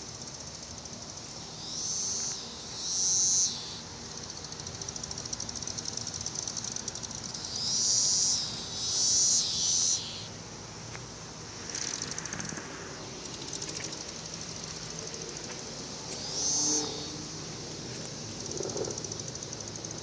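Periodical cicadas: a steady high-pitched chorus, with nearby individuals calling loudly over it about five times, each call lasting about a second.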